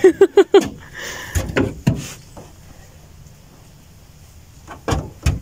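A few scattered knocks and thumps, two stronger ones near the end.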